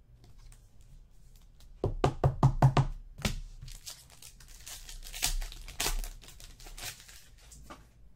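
A quick run of about half a dozen knocks, about two seconds in, as a card pack is handled on the desk. Then the foil wrapper of a trading-card pack crinkles and tears as it is opened and the cards are pulled out.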